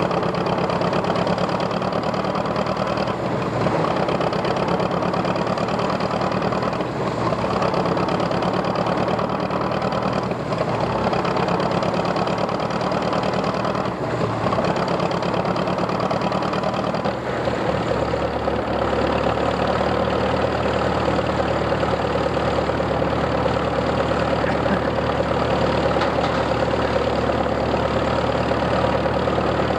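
Case cross-motor tractor's four-cylinder engine running steadily with a fast, even beat. A little over halfway through, the sound settles into a steadier, smoother hum as the belt-driven threshing machine runs.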